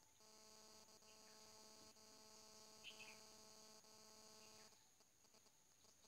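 Near silence, with a faint, steady, pitched hum that stops abruptly about three quarters of the way through. A brief, faint chirp sounds near the middle.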